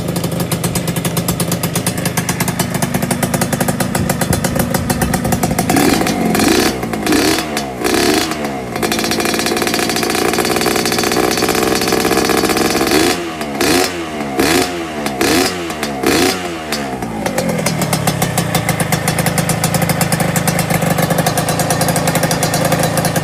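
Suzuki Xipo (RGV 120) two-stroke single-cylinder motorcycle engine running on its stand through an aftermarket exhaust, revved in quick repeated throttle blips twice: a run of about four blips, then after a steady spell a run of about six, settling back to a steady idle near the end.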